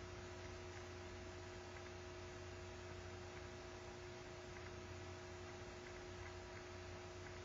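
Quiet room tone: a steady low hum with a faint hiss. The brushwork on the bowl makes no sound that stands out.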